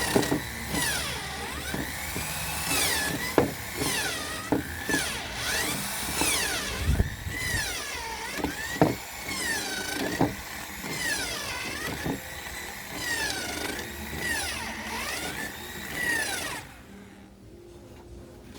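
Electric drill running in repeated bursts, its pitch dipping and climbing again every second or two, with scattered clicks. It stops about 17 seconds in.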